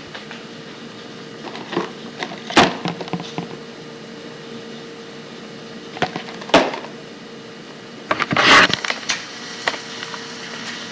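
Steady hiss with a faint steady hum, typical of cassette tape playback, broken by sharp clicks and knocks: two pairs spread through the first part, then a dense cluster of rattling knocks about eight seconds in and one more click shortly after.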